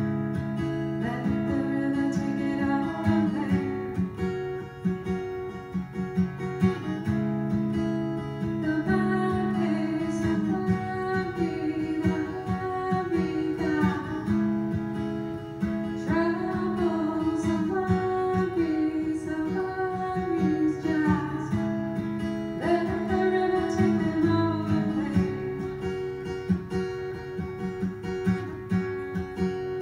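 Acoustic guitar strummed steadily, with a woman singing over it in phrases.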